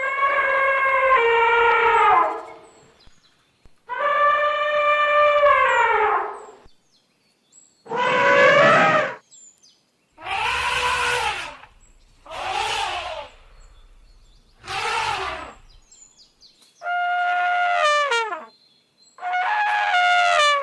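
African savanna elephant trumpeting: about eight calls separated by short silences. The first two are long and held; the later ones are shorter, several rising then falling in pitch.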